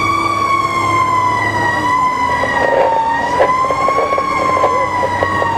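Sutphen fire engine's siren sounding as one long held tone that slowly sags in pitch, rises slightly around the middle and sags again, heard from inside the cab over the engine running beneath it.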